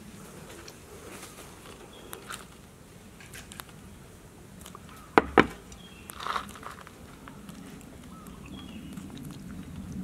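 Glass plate set down on a wooden tabletop: two sharp knocks in quick succession a little past halfway, then a short rustle, over low background noise.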